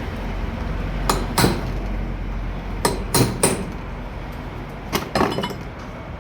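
Hammer striking metal, about eight sharp ringing blows in three quick groups, during work on a starter motor.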